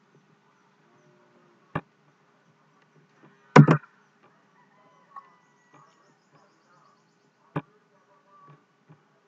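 Two sharp computer mouse clicks about six seconds apart, with a louder double knock between them, over a faint steady hum.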